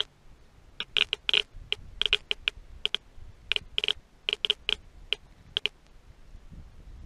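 Rapid, irregular clusters of sharp, identical clicks, some spaced apart and some in quick runs of two to four.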